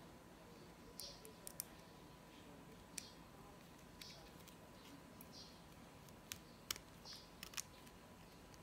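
Faint handling noise from fitting a woven nylon replacement band onto a Garmin Forerunner 230 watch: scattered small clicks and brief light scratches as fingers work the band end into the watch lugs. A faint steady high tone runs underneath.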